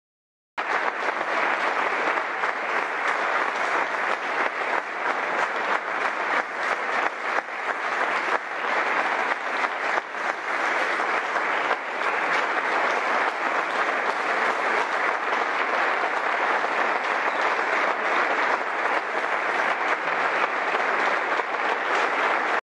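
Sustained applause from a large audience: dense, steady clapping that starts abruptly and cuts off suddenly near the end.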